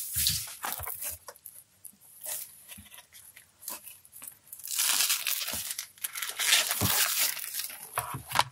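Packaging being torn and crinkled while the parts of an acrylic display box are unwrapped. A few light clicks and rustles come first, then a longer stretch of tearing runs from about the middle to near the end.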